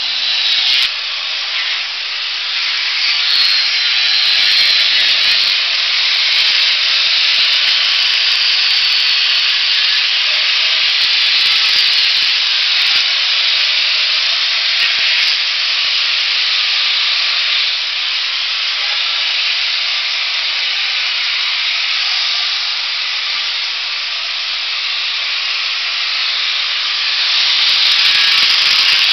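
Grinder grinding down a hoof: a continuous hissing rasp of the spinning disc against the hoof horn as the sole is levelled flat. It gets somewhat louder near the end.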